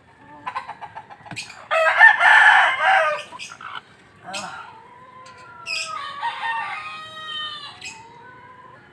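Broody hen in a wooden nest box giving a loud harsh squawk lasting about a second, then several drawn-out calls later on, with a few sharp knocks of wood: a hen defending her clutch as a hand reaches in to slip eggs back under her.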